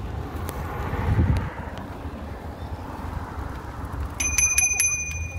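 Bicycle bell rung in a quick string of strikes, starting about four seconds in, warning pedestrians walking ahead on the cycle path. Under it runs a steady rush of wind and rolling noise from the moving bike.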